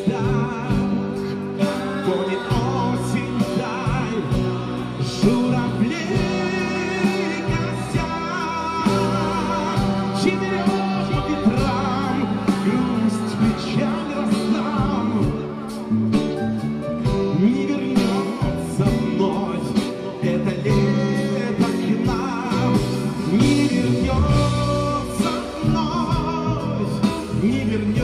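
Live rock band playing through a PA: electric guitar, electric bass and drum kit, with a male voice singing.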